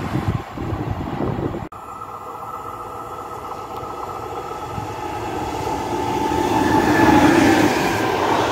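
Electric freight train of lorry trailers on Lorry-Rail wagons, hauled by a BB 27000 locomotive, approaching and passing close by. After an abrupt break about two seconds in, the rolling of its wheels on the rails builds steadily, with a few held tones in it, and is loudest near the end as the wagons go past.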